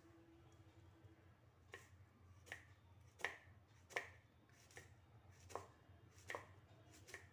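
A kitchen knife slicing through a peeled raw Nendran plantain and tapping a wooden chopping board: about eight crisp chops, roughly one every three-quarters of a second, starting about two seconds in.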